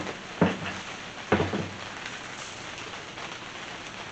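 Three heavy clunks within about a second and a half as an aluminium NP231 transfer case is turned over and stood on end on a metal workbench.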